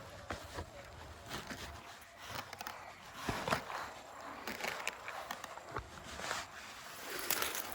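Footsteps and rustling through dry brush, with scattered snaps and crackles.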